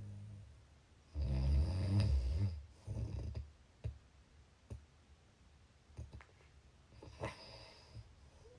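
Snoring in sleep: one long, loud snore about a second in, a shorter one right after it, then quieter breathing with a few short clicks.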